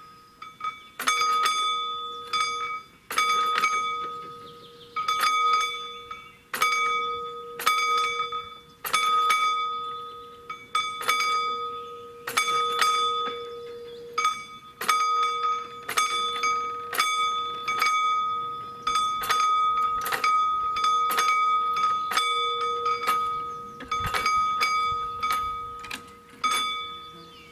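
Level-crossing warning bell ringing, struck about once a second and sometimes twice in quick succession, each stroke ringing on and fading. It warns that a train is approaching and the barriers are closing.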